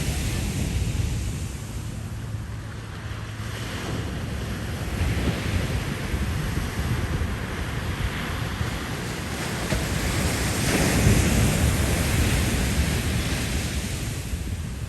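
Ocean surf washing onto the beach with wind buffeting the microphone in a low rumble; the wash swells to its loudest about eleven seconds in.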